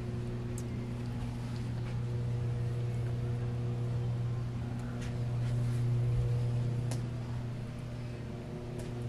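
A steady low mechanical hum, with a few faint clicks about five and seven seconds in.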